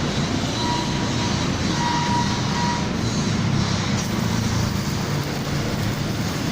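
Stick-welding arc from a Jasic ARES 120 inverter welder burning a 2.5 mm electrode in a continuous drag weld: a steady, dense hiss.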